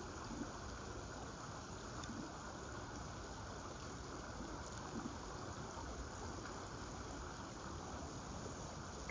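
Steady rush of flowing river water, an even noise without distinct events.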